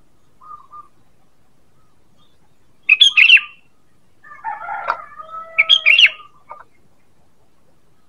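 Sooty-headed bulbul calling: a faint short note, then about three seconds in a loud, quick run of bright chattering notes, followed by a longer, lower and busier phrase with some held notes.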